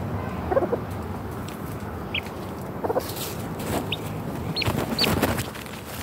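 Chicken clucking twice, with several short high chirps in between, over a steady low rumble.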